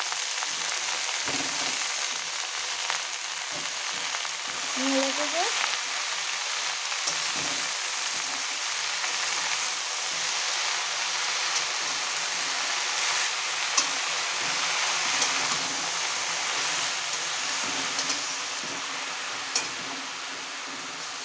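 Red amaranth leaves sizzling in hot oil in a metal kadai: a dense, steady frying hiss that eases slightly near the end. A flat metal spatula stirs them, with a few sharp clicks of the spatula against the pan.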